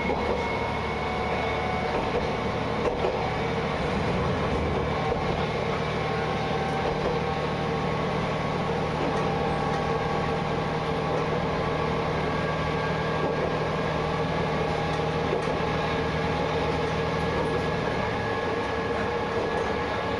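Isumi Railway diesel railcar running steadily along the track, heard from inside the front of the car: an even engine drone with wheel and rail noise.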